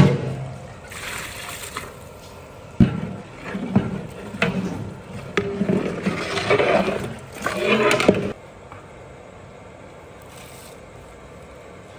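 Water poured from a steel mug into a large metal pot of masala, splashing, and a long metal ladle scraping and knocking against the pot as the gravy is stirred, with sharp knocks about three and four seconds in. The sounds stop suddenly about two-thirds of the way through, leaving only steady low background noise.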